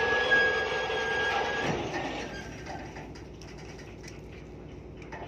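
Lifeboat davit winch running with a steady whine and a high squeal, stopping about two seconds in; a low steady machinery hum carries on underneath.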